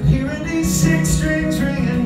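Man singing into a microphone with solo acoustic guitar accompaniment.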